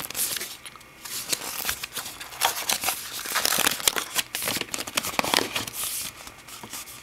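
A keyboard cover's retail packaging being ripped open and handled by hand: irregular rustling and crinkling with small tearing clicks as the cover is pulled out.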